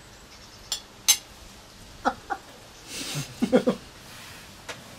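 A couple of sharp clinks of a fork against a plate, then a few short giggles and laughs in the second half.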